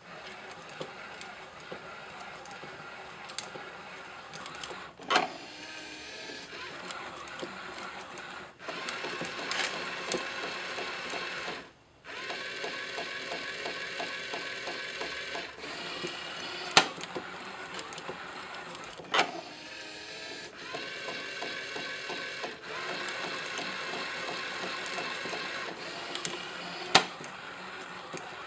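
Motors and mechanical parts of a kinetic scrap-art sculpture running with a steady machine whir that changes tone every few seconds. Sharp clacks of moving parts come now and then, the loudest about two-thirds of the way through and near the end.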